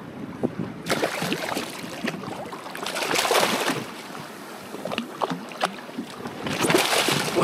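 A hooked yellowfin tuna splashes at the surface beside a fishing kayak, with seawater sloshing against the hull and wind on the microphone. There are three louder rushes of splashing, about a second in, around three seconds in, and near the end.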